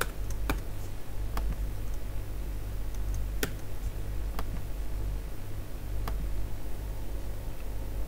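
A handful of isolated clicks from a computer keyboard and mouse, spaced unevenly a second or two apart, over a steady low electrical hum.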